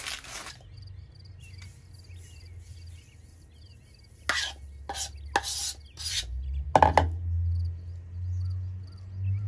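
Spoon scraping thick waffle batter out of a bowl and dropping it onto a mini waffle maker's plate: a handful of short scrapes and knocks, the loudest about seven seconds in.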